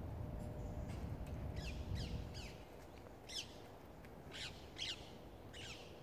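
Rose-ringed parakeet giving a run of about seven shrill calls, each sliding down in pitch, in clusters of two or three.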